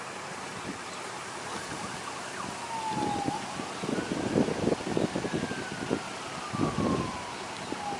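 A siren wailing in slow sweeps, falling, rising, then falling slowly again, starting about two seconds in. Several dull thumps sound in the middle.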